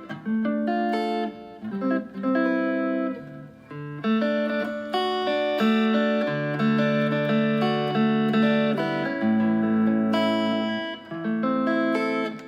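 Fender Stratocaster electric guitar playing a slow melody of held notes and chords through effects pedals, with short breaks between phrases.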